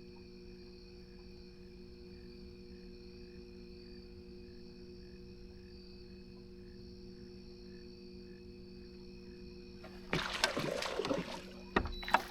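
A boat motor hums steadily and faintly on a few fixed tones. About ten seconds in, loud irregular knocks and rustling break in.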